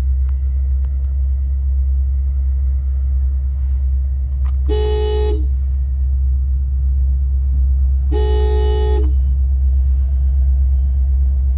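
Two short toots of a vehicle horn, the second a little longer, each dipping slightly in pitch as it cuts off, sounded at a train to ask for a horn reply. A steady low rumble runs underneath.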